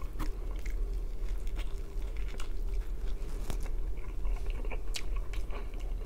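Close-up chewing of crunchy thin-crust pizza: irregular small crunches and mouth clicks over a steady low hum.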